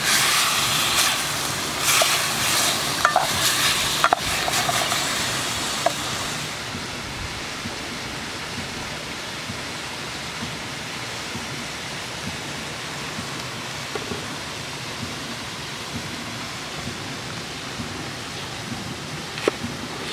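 Chunks of buffalo meat sizzling as they brown in a metal pot, stirred with a wooden spoon, with scattered scrapes and clicks. After about six seconds the sizzle gives way to a steady, softer rushing background. A single sharp knife chop on a wooden board comes near the end.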